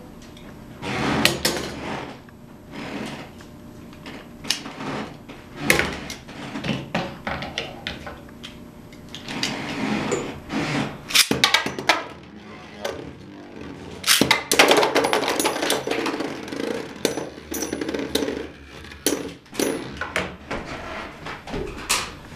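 Beyblade spinning tops launched into a plastic stadium and clashing, with metal and plastic parts striking each other and the bowl walls. It comes as an irregular run of sharp clicks and clatters, loudest and densest about two-thirds through.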